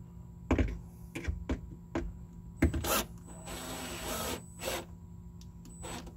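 Milwaukee cordless drill running in short bursts, the longest about a second, as it drills or drives a screw into a plastic mounting tab, with sharp knocks of handling and the bit meeting the part beforehand.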